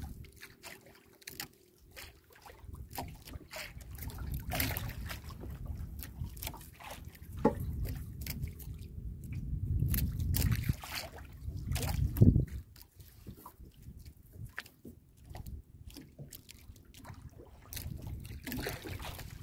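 Water sloshing and lapping against the hull of a small outrigger boat, with gusts of wind on the microphone that swell and fade. Scattered small clicks and knocks from handling fishing line, and one sharp thump about twelve seconds in.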